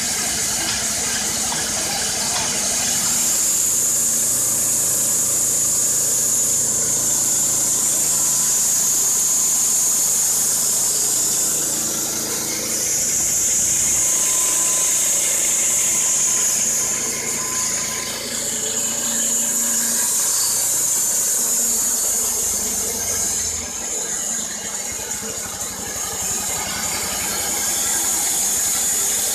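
Wood-Mizer LT-15 band sawmill cutting through a pine log, its Kohler Pro-15 petrol engine running under load while the band blade gives a high, steady squeal. The sound dips briefly a few times near the end of the cut.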